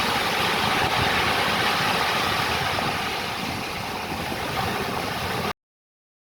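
Ocean waves washing on a shore: a steady rushing of surf that cuts off suddenly about five and a half seconds in, leaving silence.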